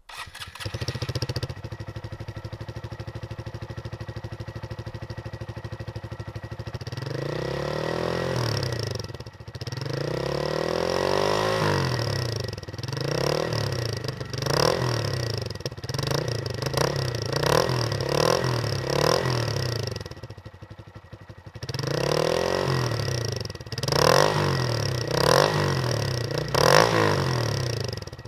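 2019 Honda Grom's 125 cc single-cylinder engine breathing through a high-mount aftermarket muffler with its baffle in: it starts warm with a brief flare, idles for several seconds, then is revved again and again in quick blips, dropping back to idle for a moment before a last run of revs.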